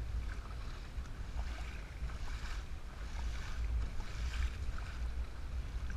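Kayak paddle strokes splashing into lake water, alternating sides about once a second. A steady low rumble of wind on the camera microphone runs under them.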